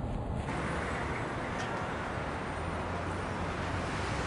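Low in-car road rumble, then about half a second in a steady wash of city traffic noise: engines and tyres on a busy road.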